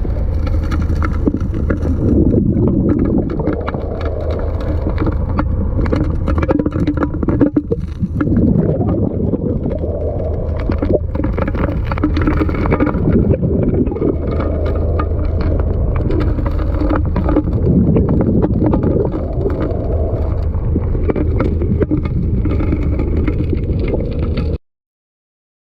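Gold dredge engine running steadily, with water churning and gurgling around it; it cuts off abruptly about a second before the end.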